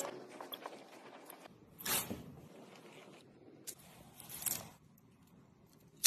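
Cable-sheath stripping tool slitting and scraping the rubber jacket of a cable, with two short rasping strokes and faint rustling as the sheath is worked off. A sharp click at the very end.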